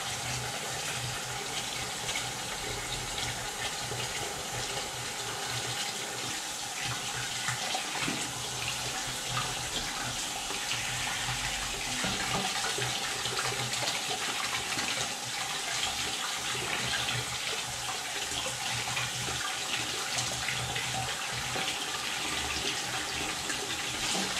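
Kitchen tap running steadily, its stream splashing over a baitcasting reel held in the hands and into the sink as the salt water is rinsed off the reel.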